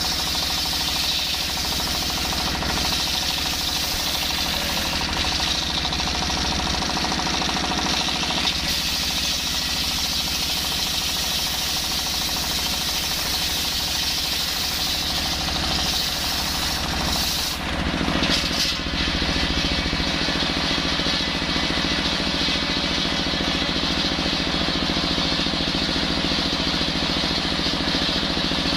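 Single-cylinder stationary diesel engine running steadily, driving a circular saw blade that rips lengthwise through a hard coconut-wood log. The sound briefly dips and changes about two-thirds of the way through.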